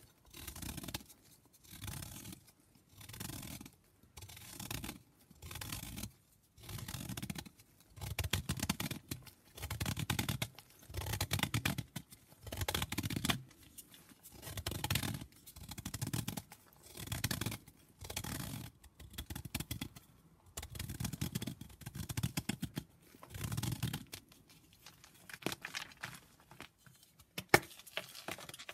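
Block of gym chalk being shaved in repeated strokes, about one every second and a half, each a short, crackly scrape. A single sharp crack comes near the end.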